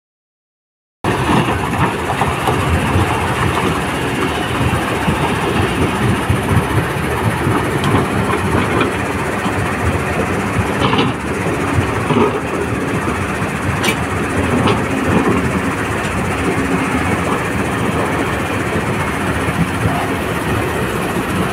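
Kobelco SK200-10 hydraulic excavator working a rock pile: its diesel engine runs steadily under load, starting about a second in, with a couple of short sharp clinks of rock near the middle.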